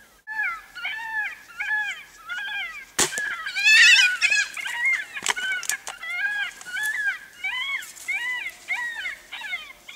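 Repeated high, yelping animal calls, about two a second, each rising and falling in pitch. One sharp crack comes about three seconds in, followed by a louder, harsher call.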